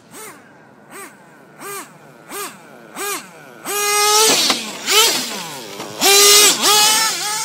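Custom Traxxas T-Maxx RC monster truck's nitro engine: five short throttle blips, each a quick rise and fall in pitch, then full-throttle acceleration. Two high revs about 4 and 5 seconds in, and the loudest, longest rev about 6 seconds in as the truck passes close, falling off near the end.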